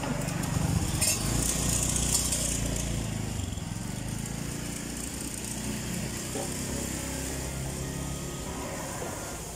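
A small motor running, a little louder in the first few seconds.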